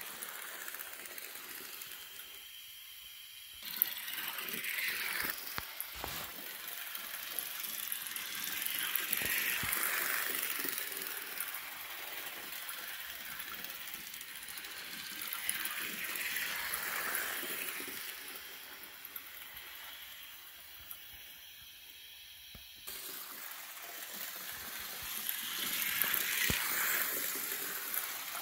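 Miniature HO-scale live-steam locomotive running around a loop of track: a steady hiss with fine rapid clicking from its running gear and wheels, swelling and fading as it comes nearer and goes farther away.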